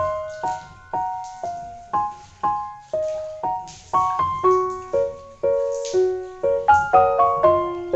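Background piano music: a gentle melody of single struck notes, about two a second, each fading before the next.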